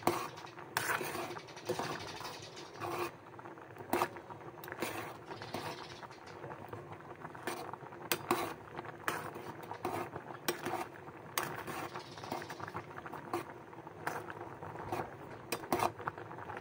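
Macaroni boiling in a metal pot, the water bubbling, with irregular clicks and knocks of a metal spoon against the pot as the pasta is stirred.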